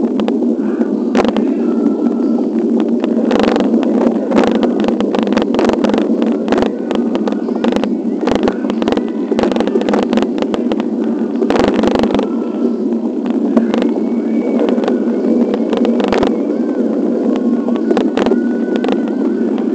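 Steady rushing noise of riding a bicycle over a wet, rough asphalt road, picked up by a bike-mounted camera, with frequent sharp clicks and knocks as the bike and mount jolt over cracks and bumps, busiest in the first half.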